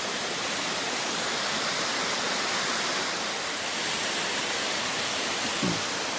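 A waterfall's water rushing steadily over its cascades, an even hiss-like roar of falling water.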